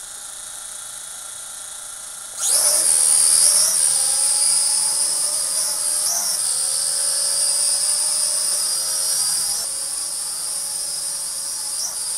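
Motors and propellers of a foldable 8807W mini quadcopter: at first a quieter steady whine while it sits on the table, then a sharp rise in pitch and loudness about two and a half seconds in as it lifts off. After that comes a steady high-pitched whine with brief wobbles in pitch as it flies, easing a little at about ten seconds.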